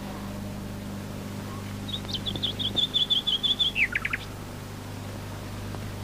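A songbird sings once, about two seconds in: a quick run of about a dozen repeated high chirps ending in a few falling notes. A steady low hum runs underneath.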